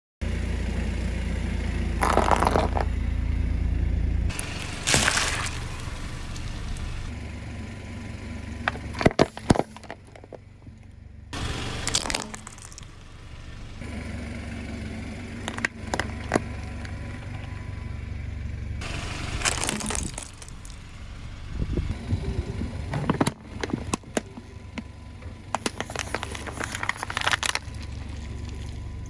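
A car's tyres rolling over and crushing objects, with a series of sharp cracks and crunching over the low rumble of the car.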